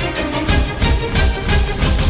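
Epic war-style soundtrack music with a steady driving beat of about three beats a second.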